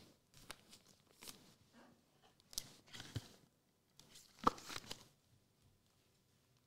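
Trading cards and plastic card holders being handled on a table: a string of short rustles, scrapes and clicks, the sharpest about four and a half seconds in.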